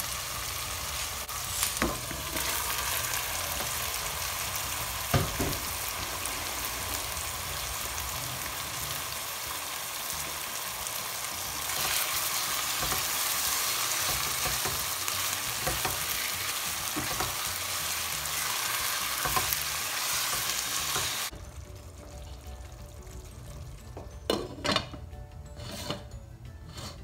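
Onions, tomatoes and raw lamb pieces sizzling in hot oil in a non-stick pan, stirred with a spatula that knocks against the pan now and then. The sizzle gets a little louder about halfway through, then stops short. Near the end a glass lid clinks a few times as it is set on the pot.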